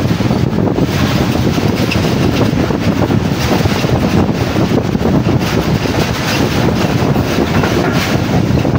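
Passenger train running along the track, with a steady rush of wind buffeting the microphone over the rumble of the coaches.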